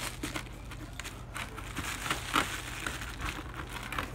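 Bubble wrap and plastic packaging crinkling and rustling as it is handled, with scattered short crackles.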